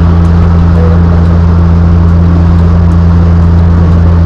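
Airliner cabin noise in flight: the engines and the rushing air make a steady, loud drone with a deep constant hum under it.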